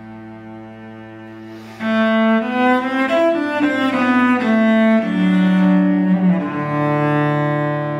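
Solo cello played with the bow: a soft held note, then about two seconds in a louder phrase of quickly moving notes that settles into long sustained notes, dropping to a lower one near the end. A steady low drone sounds underneath throughout.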